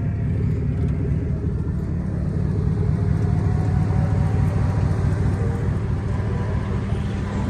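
Pickup truck engine idling steadily with a low hum.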